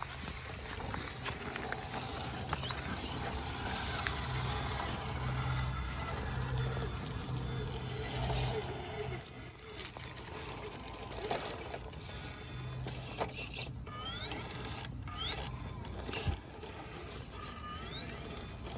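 Electric motor and gear drive of a radio-controlled rock crawler, whining steadily as it creeps along, with several short rising whines as the throttle is applied in the second half and a few sharp clicks.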